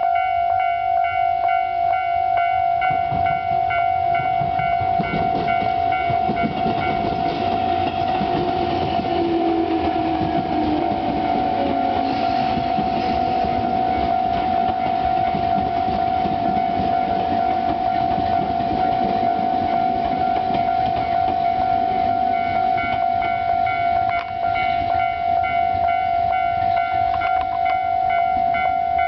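Japanese level-crossing electronic warning bell in its standard tone, ringing on without a break while a Tobu train passes through the crossing; the train's running noise builds about three seconds in, carries a brief sliding whine, and eases off after about twenty seconds.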